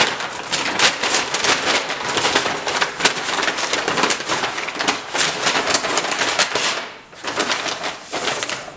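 Brown paper grocery bag rustling and crinkling as a hand rummages inside it, with a short lull about seven seconds in.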